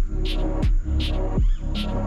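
Background electronic music with a steady beat: a deep, falling bass kick about every three-quarters of a second, alternating with a sharp, higher hit.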